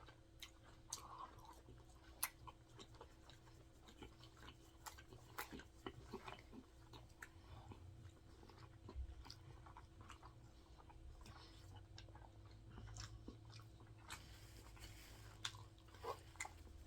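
Faint chewing with soft mouth clicks and lip smacks scattered throughout, heard close up, over a faint steady hum.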